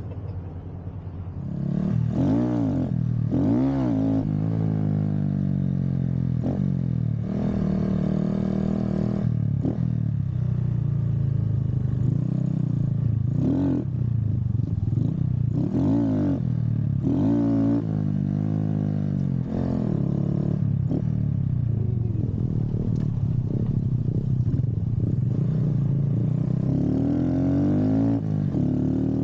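Honda Grom's small single-cylinder engine pulling away about a second and a half in, then revving up and easing off again and again as the mini bike is ridden, heard through a GoPro's own microphone.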